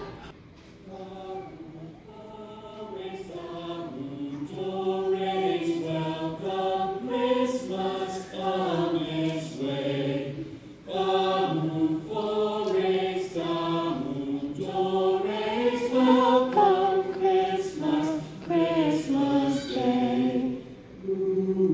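A chorus of stage performers singing a slow carol-like song in held notes that step from one pitch to the next, starting softly and filling out over the first few seconds.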